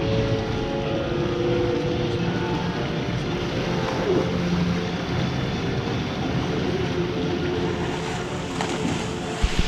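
Steady, echoing rushing din of an indoor swimming pool, with swimmers splashing in the lanes, and two sharp hits near the end.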